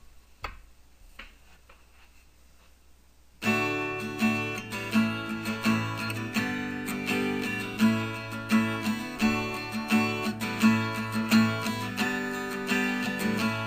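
Acoustic guitar strummed in a steady rhythm as a song's instrumental intro, coming in suddenly about three and a half seconds in after a few faint clicks.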